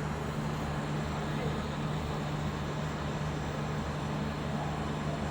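Welding equipment running: a steady electrical hum with an even hiss over it and a pulsing low rumble underneath.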